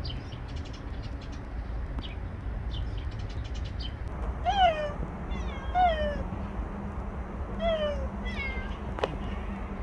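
A cat meowing about five times, starting about halfway through. The short calls each fall in pitch.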